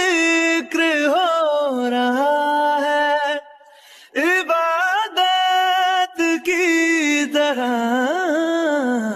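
Background music from a Hindi song: a solo voice sings long, wavering held notes with little accompaniment, breaking off briefly about three and a half seconds in.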